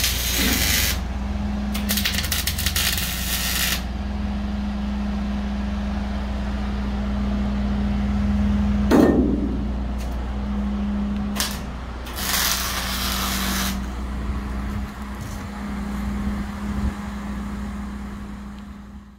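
Electric arc welding on steel container braces, the arc crackling and hissing in short runs of one to two seconds, three times, over a steady low machine hum. A single sharp metal clank comes about nine seconds in.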